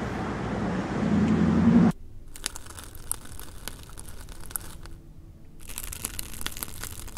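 Steady outdoor hiss that cuts off abruptly about two seconds in, followed by the crackle and crunch of chocolate candies being cut through, their shells cracking in two runs of small sharp cracks with a short pause between.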